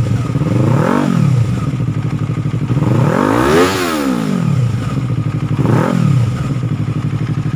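Yamaha R3's parallel-twin engine idling through an Akrapovic M1 slip-on exhaust with a resonator link pipe, revved three times: a short blip about a second in, a longer, higher rev in the middle, and another short blip near the end, each falling back to idle.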